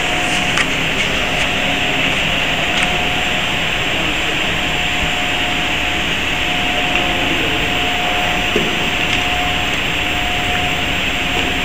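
Steady whirring hum and hiss of running PCB assembly machinery, with a constant mid-pitched tone and a few faint clicks.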